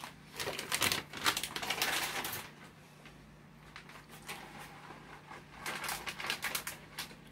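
Plastic bag of shredded cheese crinkling as it is handled and shaken out, in two spells of rapid crackling, one starting just after the start and one near the end.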